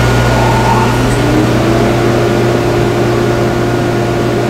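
Table saw with a dado stack running freely at speed, not yet cutting: a loud, steady motor hum with a faint tone that rises slightly about a second in and then holds.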